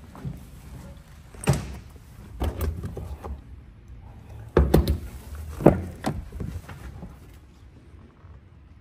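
The fuel-filler door and a cab door of a 2017 Chevrolet Colorado pickup being worked by hand: a series of sharp clicks and knocks over low handling rumble. The loudest knocks come in a cluster about halfway through, with another about a second later.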